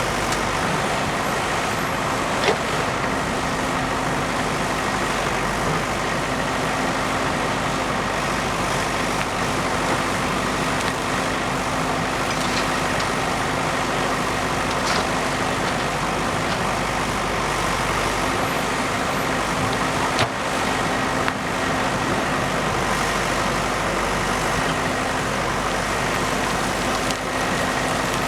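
Diesel engine of a JCB backhoe loader running steadily while it works, with a few brief knocks.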